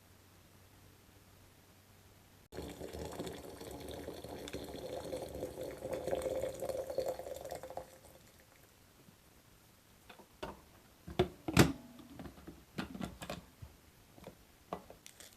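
Water running from a tap into a container, starting suddenly a few seconds in and stopping after about five seconds. A few seconds later come a string of sharp knocks and clinks, the loudest of them at about the middle of that stretch.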